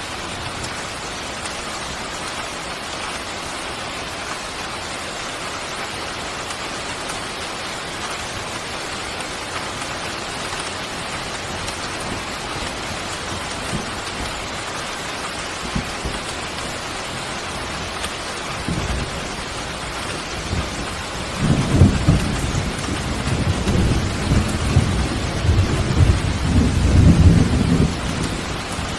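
Steady rain falling. About two-thirds of the way in, a low rumble of thunder builds, loudest near the end, then dies away just before the end.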